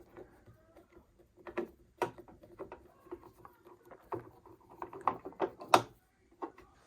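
Light clicks, taps and knocks of a sewing machine's cover being worked loose and lifted off, with two sharper knocks about two seconds in and near the end.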